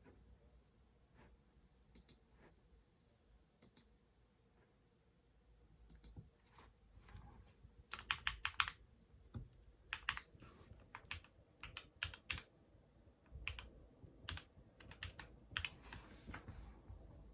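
Typing on a Keychron mechanical keyboard: a few scattered key presses, then a run of quick keystrokes from about six seconds in.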